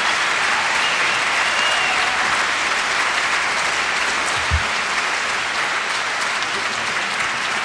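Concert audience applauding steadily, with one short low thump about four and a half seconds in.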